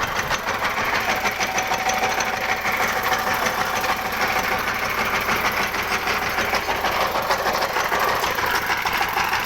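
Well-drilling rig running steadily, its engine chugging with a rapid, even knocking.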